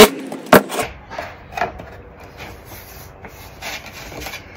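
Cordless drill finishing driving a screw into a pine board, with a couple of sharp knocks, stopping within the first second. Then wood rubbing and scraping as the hinged pine box and board are handled.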